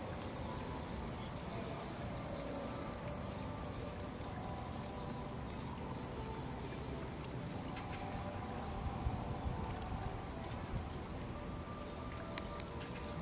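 A steady, high-pitched chorus of insects calling in the trees, over a low outdoor rumble. A couple of sharp clicks come near the end.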